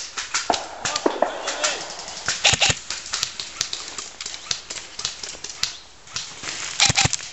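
Airsoft rifle shots: two short pairs of sharp snaps, about two and a half seconds in and again near the end, among irregular close clicks and rustling of pine branches.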